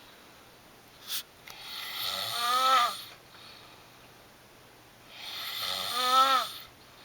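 Snoring: two long, slow snores a few seconds apart, each swelling and ending in a pitched, rattling tone that rises and then falls. A brief sharp sound comes just after a second in.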